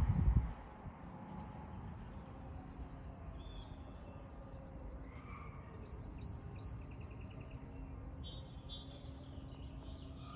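Small songbirds chirping in quick repeated high trills over steady low outdoor noise. A distant fire siren winds down and back up faintly underneath. A loud low rumble stops about half a second in.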